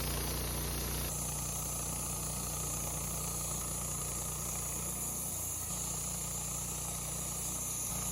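Wood-Mizer LT15 portable bandsaw mill's engine running steadily. Its sound changes abruptly about a second in.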